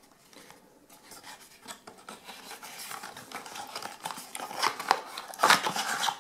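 A 120 mm case fan being unpacked: its cardboard box is opened and the fan slid out, with light rubbing and scraping of cardboard and the fan's plastic frame, loudest near the end as the fan comes out of the box.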